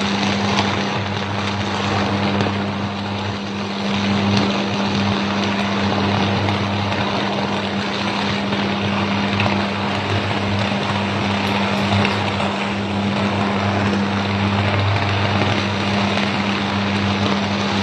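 High-voltage transmission line fault: sustained power arcs burning at the crossarms of a steel lattice pylon. It is a loud, steady deep electrical buzz under a constant crackling hiss, unbroken throughout.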